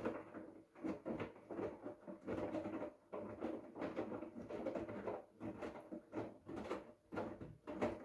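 Hoover front-loading washing machine's drum turning a wet load of cottons during the prewash: clothes and water sloshing and slapping in repeated, uneven surges.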